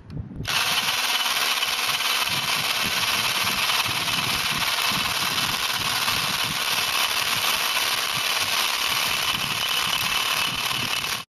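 19.2-volt cordless hammer drill in hammer mode, boring into a brick with a masonry bit. It runs loud and steady from about half a second in, reaching 105.5 dB max on a sound level meter held beside it, and cuts off suddenly at the end.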